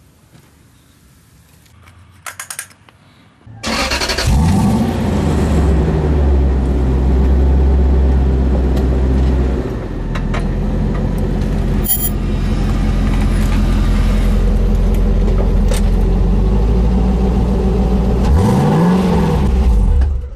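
Lexus LS 400's 4.0-litre V8 started after a fresh oil change: a few clicks, then about three and a half seconds in it cranks, catches, flares up and settles into a steady idle. Near the end the revs rise and fall once, then the sound cuts off abruptly.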